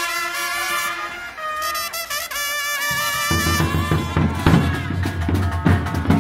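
Street marching band playing: trumpets and other brass hold sustained notes, and about three seconds in the big bass drums and other drums come in with a heavy, steady beat under the brass.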